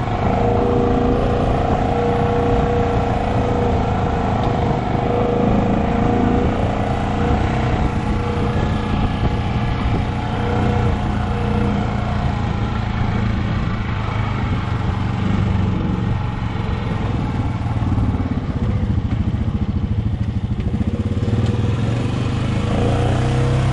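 ATV engine running steadily as the quad rides along a dirt trail, with the engine note shifting slightly as it slows near the end.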